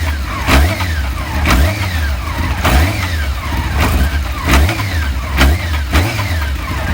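Car with its engine running and a crunching knock repeating about once a second, each knock followed by a short falling tone. This is the crunch-and-knock noise the car is being recorded for.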